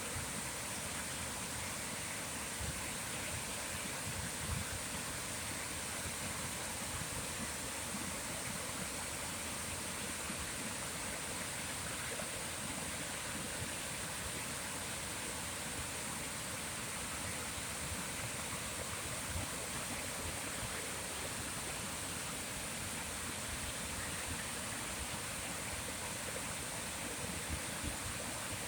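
Flowing water of a stream rushing steadily and evenly, with no change throughout.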